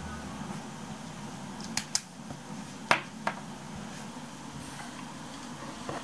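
A plastic pen being handled and laid down on a desk: a few light clicks and taps, two close together about two seconds in and two more around three seconds in, over faint room hiss.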